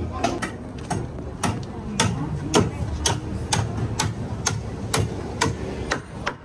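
Footsteps climbing open metal stairs with wooden treads, a sharp step about twice a second.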